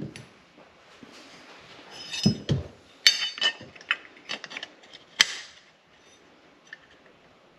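Metal bracket and battery cutoff switch being handled and fitted together by hand: a couple of dull knocks about two seconds in, then a run of sharp, ringing metal clinks, the loudest about five seconds in.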